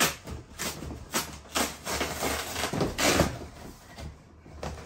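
Large cardboard box being opened by hand: several sharp knocks on the cardboard, then a longer rasping, tearing noise about two seconds in as the top is pulled open.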